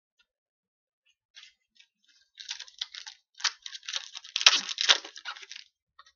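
Foil wrapper of a hockey card pack being torn open and crinkled: a crackly rustle that starts about a second in, grows thick and loud in the middle, and stops shortly before the end.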